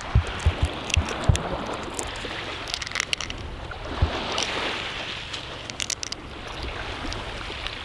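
Wind buffeting the microphone over steady surf, with scattered sharp clicks and crackles as fingers pry open a small shell to get at the meat inside.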